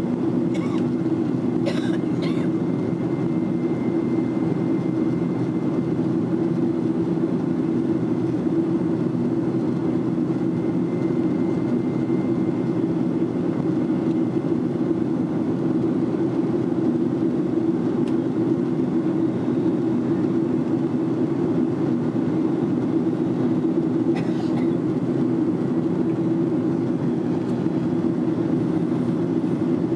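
Steady cabin drone of a Boeing 767-400ER climbing, heard inside the cabin at a window seat: engine and airflow noise from its General Electric CF6-80C2 turbofans, with a low hum running through it. A few faint clicks come about two seconds in and again near the end.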